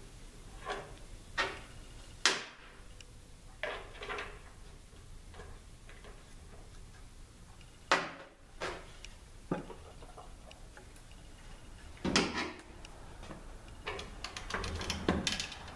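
Scattered metal clicks and clanks of a jig being fitted into a transmission case's servo bore and of tools being handled on a metal bench. There are about a dozen separate knocks with pauses between them, and a quicker run of clicks near the end.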